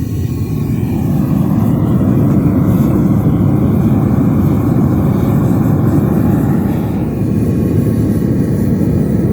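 Gas burner of a small metal-melting furnace running flat out, a loud steady low rushing noise that swells about a second in as it is turned all the way up, heating a crucible of brass to melt.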